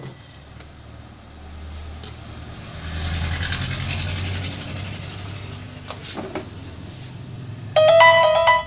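Audio from a CRT television's speaker as it picks up a broadcast signal: a rushing noise over a low hum swells up and fades, a few clicks follow, then a loud held tone with several pitches sounds for under a second near the end.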